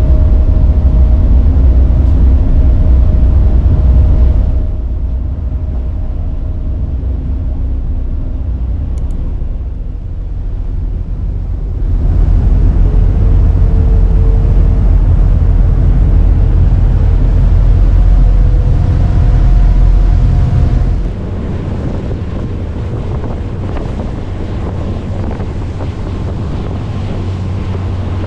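A passenger ferry's engine runs as a steady low drone, with wind buffeting the microphone and water rushing past the hull. The sound steps down about five seconds in, back up about twelve seconds in, and down again about twenty-one seconds in, where the recording cuts between stretches of the crossing.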